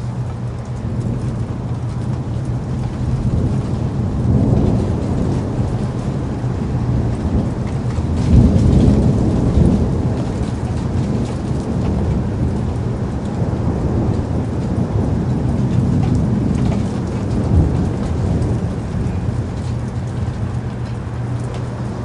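Steady rain with low rolling thunder, swelling about four seconds in and more strongly around eight to ten seconds in.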